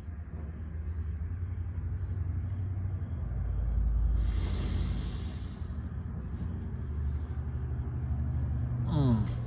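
Low rumble of passing road traffic that swells about four seconds in with a burst of hiss. Near the end comes a short rising tone, like an engine revving up.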